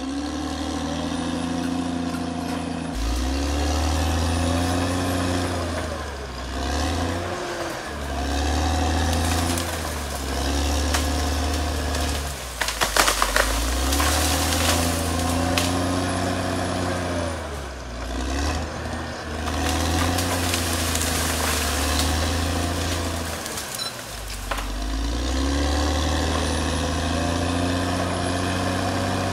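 CAT D6R XL crawler bulldozer's diesel engine working, its note sagging and climbing back every few seconds as the machine loads up pushing brush and then eases off. A brief burst of sharp cracks about thirteen seconds in.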